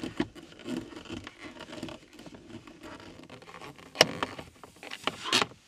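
Screwdriver turning out Phillips screws from a car's plastic lower dash panel: irregular scraping and rustling, with a sharp click about four seconds in.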